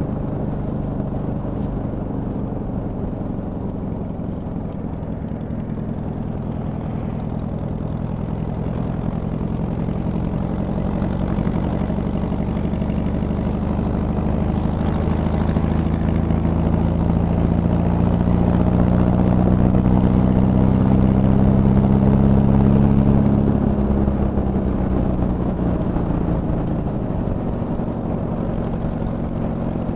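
Boom trike's engine running on the road, heard from the rider's seat. Its note rises steadily from about a third of the way in and gets louder, then drops away sharply a little past two-thirds and settles at a lower pitch.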